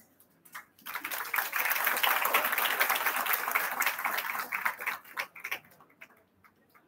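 Audience applauding: clapping starts about a second in, holds for a few seconds, then dies away into a few scattered claps near the end.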